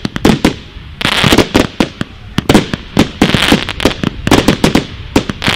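Fireworks going off: rapid volleys of sharp bangs, several a second in repeated clusters, with crackle between them.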